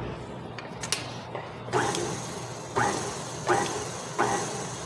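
KitchenAid tilt-head stand mixer clicking and then starting up about two seconds in on low speed, its motor and gears running with a steady whine. The flat beater works butter, icing sugar and flour in the steel bowl with a regular knock about every three-quarters of a second.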